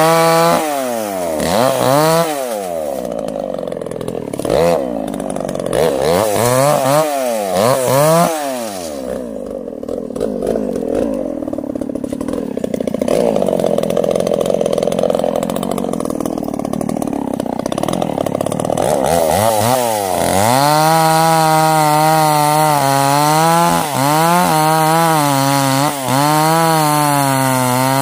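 Stihl two-stroke chainsaw revved up and down in short blips for the first several seconds, then running lower and steadier while cutting into a sengon log. From about twenty seconds in it is held at high revs, with two brief dips.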